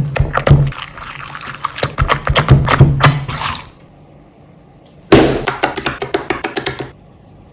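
Slime being squished and crushed: dense wet crackling and popping over background music, stopping a little past halfway, then a second shorter burst of crackling near the end.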